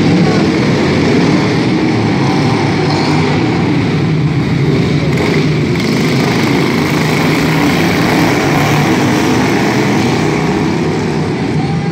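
Engines of several racing lawn mowers running steadily at speed, a continuous drone.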